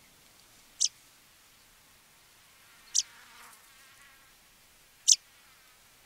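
Double-collared sunbird giving three short, sharp, high calls about two seconds apart.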